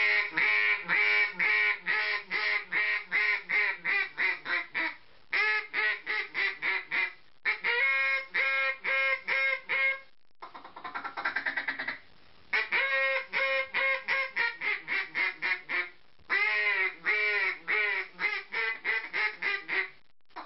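Competition-style mallard duck call blown by mouth in six runs of rapid, loud quacks, high-pitched with a raspy edge, the notes coming faster toward the end of each run: comeback and hail call sequences. One run near the middle is quieter.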